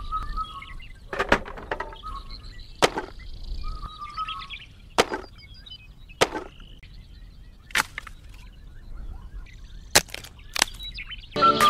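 Sharp, light taps and clicks, about seven of them one to two seconds apart, as small cardboard-framed wire-mesh parts of a miniature model are set in place, with bird chirps in the background. Music comes in near the end.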